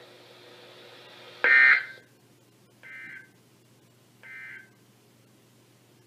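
NOAA Weather Radio EAS end-of-message data bursts: three short electronic bursts about 1.4 s apart, the first loud and the next two fainter. They mark the end of the severe thunderstorm warning broadcast.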